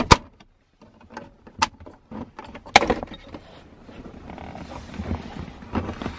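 Hard plastic clicking and snapping as a plastic pry tool works the retaining tabs of a Saab 9-3's rear center-console air vent loose. Three sharp snaps come about a tenth of a second, a second and a half and nearly three seconds in, among fainter clicks. After them comes a low scraping rustle as the vent housing is eased out of the console.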